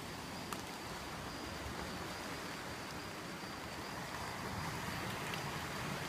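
Coastal rainforest ambience: a steady hiss of rain and surf below the trees, with a continuous high insect drone over it and a faint click about half a second in.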